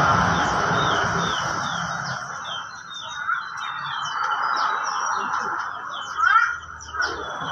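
Many small birds chirping in short, quick high chirps, over a steady rushing noise that fades out over the first few seconds. A louder, rising call stands out about six seconds in.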